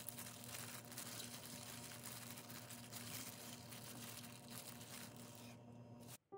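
Faint crinkling and rustling handling noises over a steady low hum, cutting off abruptly near the end.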